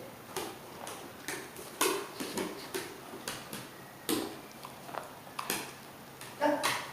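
Black cocker spaniel licking and smacking its mouth while taking food from a person's lips: irregular wet clicks, a few a second.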